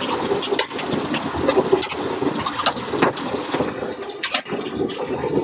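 Solid ice tubes from a tube ice machine dropping out of the outlet and clattering irregularly onto a pile of ice in a metal hopper during harvest, over a steady machine hum.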